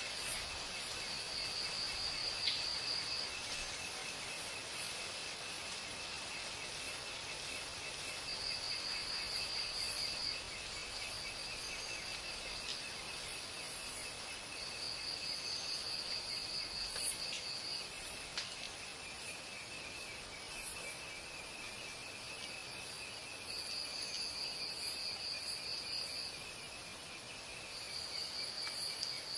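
Insects, cricket-like, trilling: a steady high trill with a second, higher trill that comes in bouts of two to three seconds, five times, and a few faint ticks.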